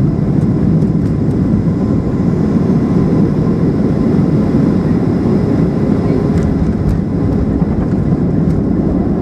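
Steady roar inside the cabin of a Boeing 737-800 in flight: airflow and CFM56 jet engine noise, with faint steady tones over a deep rumble.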